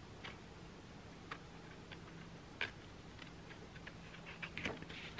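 Faint, irregularly spaced little clicks and paper taps from fingers holding and shifting the pages of a small book, growing busier near the end, over quiet room tone with a low steady hum.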